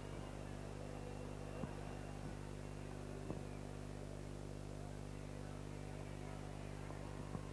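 A steady low electrical mains hum, with several stacked tones, sits over faint hiss. A few soft ticks come through, about a second and a half in, around three seconds in, and near the end.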